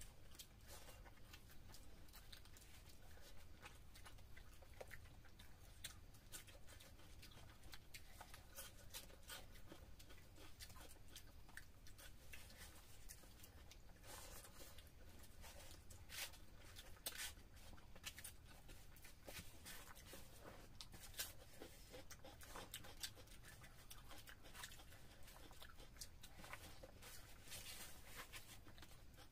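Faint hand-eating sounds: fingers working rice and fish-head curry on plates, and chewing, as scattered soft clicks and smacks over a steady low hum.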